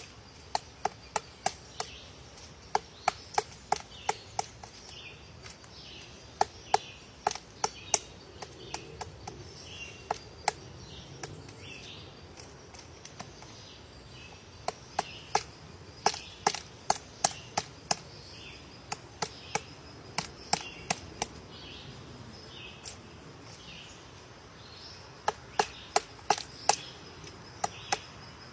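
Woodpecker pecking at wood: single sharp taps, a few a second, in runs broken by pauses. A bird's short chirp repeats roughly once a second in the background.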